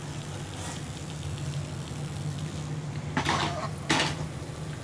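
Hot oil in an aluminium kadai sizzling lightly, with few bubbles left, as a fried rice-flour thattai is lifted out on a slotted steel ladle; the dying-down bubbling is the cook's sign that the thattai is done. Two short clatters come a little after three seconds and around four seconds in.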